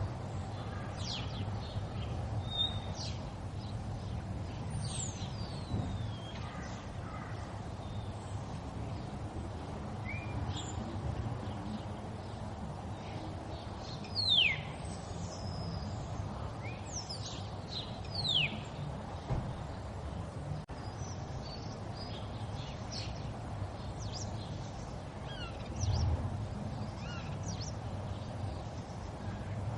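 River water flowing steadily, with birds calling over it in short, quick falling chirps, two of them louder about halfway through. A brief low rumble swells up near the end.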